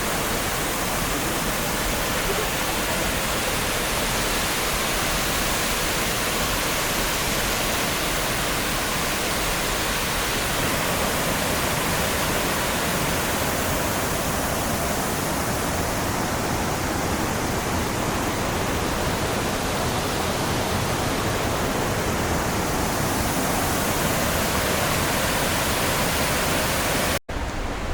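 Waterfall: a steady rush of falling water. Near the end it cuts off for an instant and comes back with less hiss.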